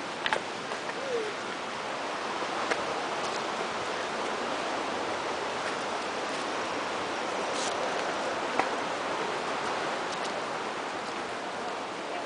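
Steady rushing outdoor noise with a few sharp clicks and knocks scattered through it, the clicks from footsteps on a dirt trail.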